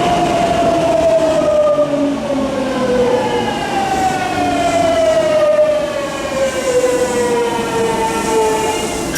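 Hitachi GTO-thyristor VVVF inverter and traction motors of a Tokyu 9000 series train, whining in several layered tones that glide down in pitch in long steps as the train slows.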